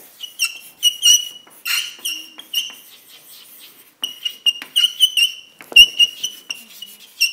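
Chalk squeaking and scratching on a blackboard as words are written: a run of short, high-pitched squeaks with scratchy strokes between them, pausing for about a second near the middle.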